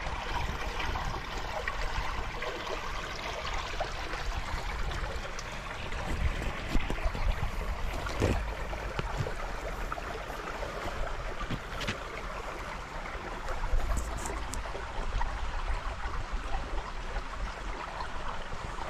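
River water flowing and gurgling: a steady rushing noise with a low rumble and scattered small clicks and knocks.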